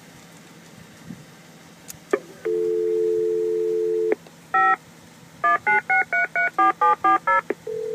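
DoorKing telephone entry keypad's speaker playing a dial tone for about a second and a half, then a single beep, then a quick string of about ten touch-tone digits as the unit dials out. A steady tone starts near the end.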